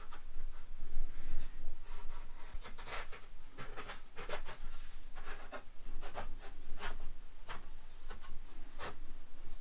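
A series of short, irregular scrapes and rubs as a hand-made model railway viaduct section is pushed and slid into its slot on the layout, board rubbing against board.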